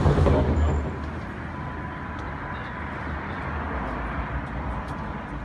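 A car engine's low rumble that drops in level about half a second in, then carries on as a steady low drone under city street noise.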